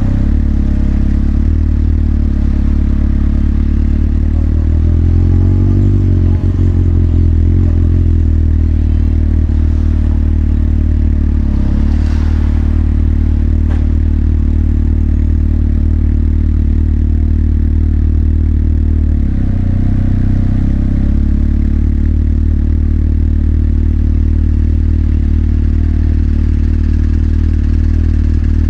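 Motorcycle engine running at low, steady revs, with a short rise in revs about five seconds in and a brief dip about twenty seconds in.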